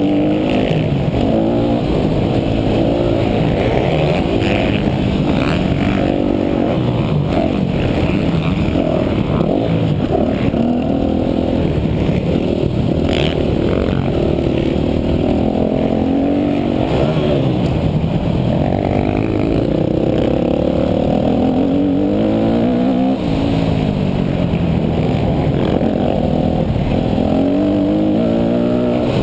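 Yamaha YZ250F's 250cc four-stroke single-cylinder engine revving hard while being ridden, its pitch climbing and dropping back over and over as the throttle opens and shuts.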